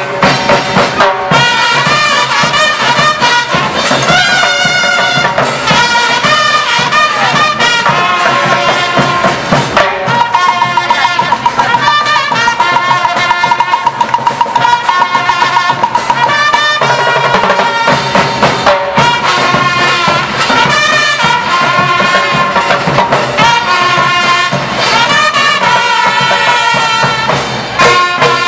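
A school rhythm band playing a march-like tune: bell lyres carry the melody over snare drums, bass drums and cymbals. A fast repeated high note is held for several seconds midway.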